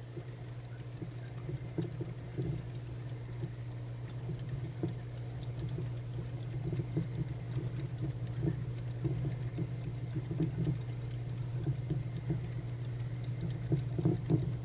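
Syrian hamster running in a wooden wheel: an uneven, rapid patter and rumble of small feet and the turning wheel, over a steady low hum.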